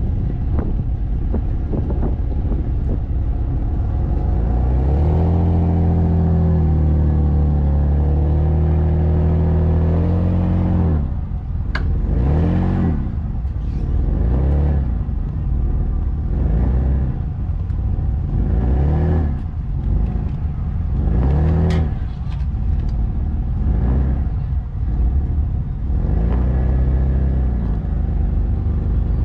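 Jeep Wrangler's engine pulling at steady revs for several seconds, then rising and falling over and over as the throttle is worked on the off-road course. A couple of sharp knocks come through partway.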